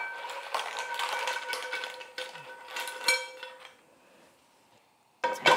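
Cooked short-necked clams poured from a metal pan into a ceramic bowl, the shells clattering and clinking against the pan and bowl, with a ringing tone that lingers for about three seconds. A brief quiet spell, then a sharp clatter of dishes near the end.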